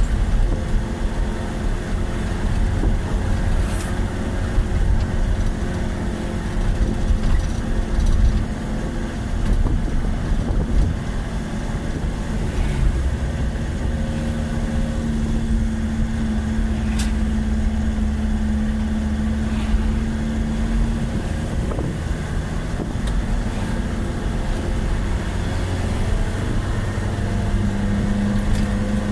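Motor vehicle engine running under way with a continuous low rumble. A steady hum shifts in pitch a few times, holding for several seconds after about 14 seconds in and again near the end.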